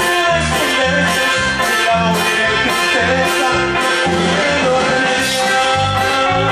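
Norteño music with no singing: accordion carrying the melody over plucked strings, with bass notes on a steady beat about twice a second.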